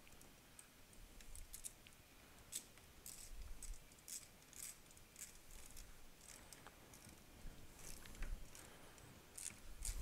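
Faint, irregular metallic clicking of a ratchet socket wrench as Torx screws are tightened down, coming in short runs of clicks.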